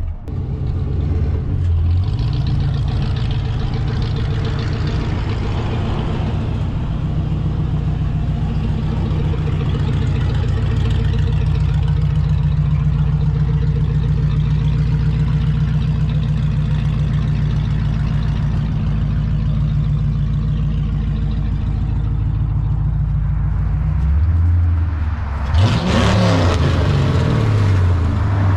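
Fuel-injected Ford 5.0 V8 in a 1949 Ford sedan, running at a steady idle, with a brief rise and fall in revs near the end.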